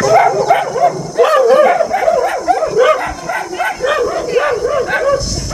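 Dogs yelping and barking in quick, overlapping runs of short calls, about three a second.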